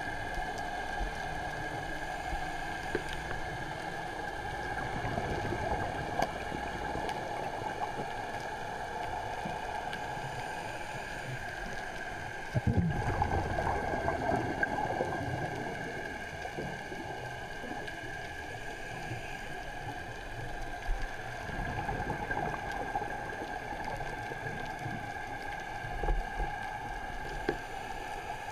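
Underwater ambience picked up by a camera in a waterproof dive housing: a steady muffled hiss with a constant hum. There is a louder low rumbling stretch about halfway through, with a few brief low bumps later.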